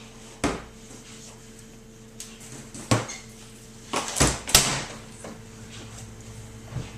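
A few separate knocks and clunks of rifles being handled and set down, the loudest two close together about four seconds in, over a faint steady hum.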